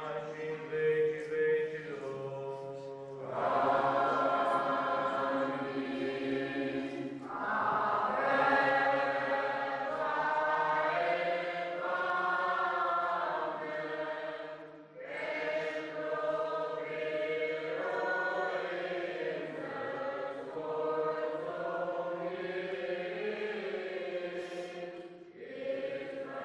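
Orthodox liturgical chant: voices singing long, held notes in slow phrases, with short pauses between them.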